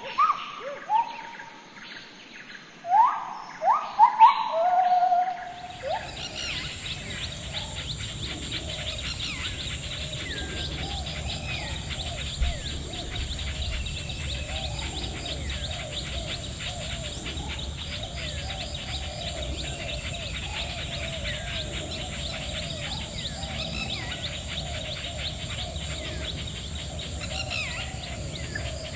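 Birds calling: a few loud, rising call notes in the first few seconds, then, after an abrupt change about six seconds in, many small birds chirping continuously over a steady background hum.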